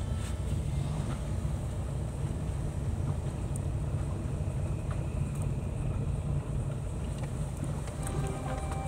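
Road and engine noise heard from inside a moving car's cabin: a steady low rumble.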